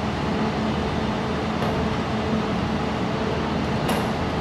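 Steady hum and fan noise of a running laser welding machine and its cooling, with one short click near the end.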